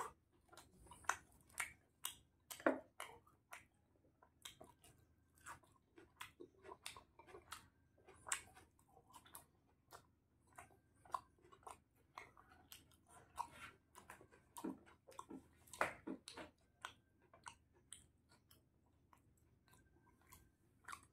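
A man chewing food close to the microphone: faint, irregular clicks and crunches of mouth and teeth, thinning out near the end.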